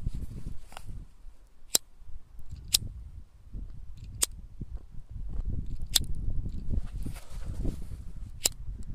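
Five sharp, isolated clicks at irregular intervals, a second or more apart, over a low, uneven rumbling noise.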